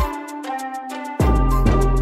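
Background music with a heavy bass and a steady ticking beat. The bass note drops out at the start and comes back about a second in.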